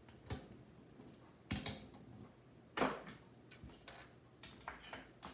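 Casino chips clicking against each other as a hand picks up and sets down a stack: a scattering of short, sharp clacks, the loudest about a second and a half in and just under three seconds in.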